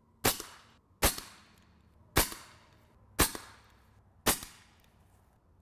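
Suppressed AirForce TalonP pre-charged pneumatic air rifle firing: five sharp shots about a second apart, each trailing off quickly, with a sixth at the very end.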